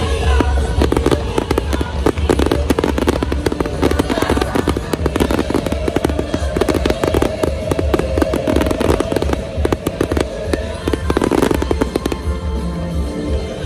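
Aerial fireworks going off in a dense, rapid barrage of bangs and crackles over loud rock music, thinning out shortly before the end.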